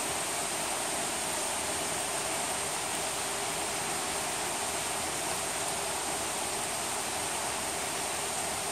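Steady rain falling on a forest: an even, unbroken hiss.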